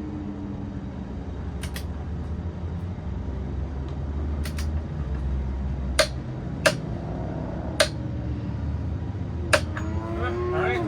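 Sharp metallic clicks of tools being handled during wheel work, a few single strikes in the second half, over a steady low rumble.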